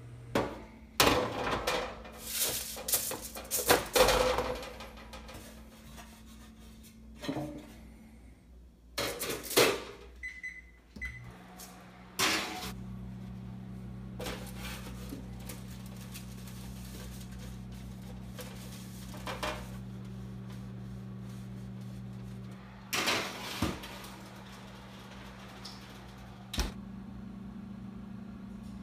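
Bursts of knocking and clattering from metal kitchenware being handled, including a sheet-metal pan on a foil-lined baking sheet. Two short electronic beeps come about ten seconds in, followed by a steady low hum with occasional clatter.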